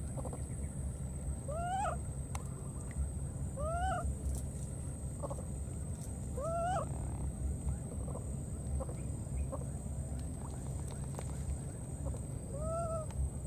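Baby macaque crying: four short coo calls, each rising and then falling in pitch, three about two seconds apart and one more near the end, over a steady low rumble.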